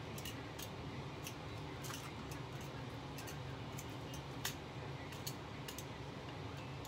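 Metal kitchen tongs clicking and clacking against a stainless steel pot and each other as chicken pieces are lifted in: irregular sharp clicks, the loudest about four and a half seconds in, over a low steady hum.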